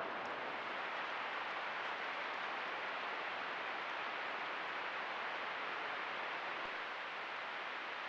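Steady rush of flowing creek water, an even noise without breaks.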